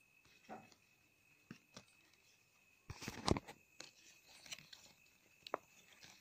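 Paper greeting-card panels handled and flipped by hand: scattered soft taps and rustles of cardstock, with a louder rustling cluster about three seconds in.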